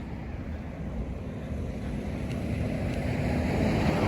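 Wind rumbling on a handheld phone microphone outdoors, with road traffic underneath that grows louder near the end.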